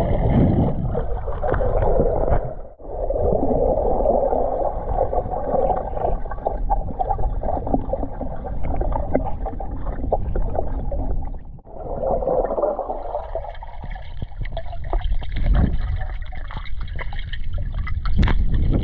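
Underwater water noise heard through a submerged camera: a muffled, steady rush of moving water and bubbling, dotted with small clicks and taps, dropping out briefly twice, about 3 and 12 seconds in.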